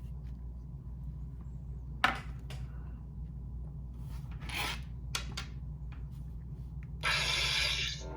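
Phillips screwdriver turning the blade-retention screw on a metal lightsaber hilt: intermittent scraping and rubbing strokes, with a sharp click about two seconds in. A loud noisy burst about a second long comes near the end.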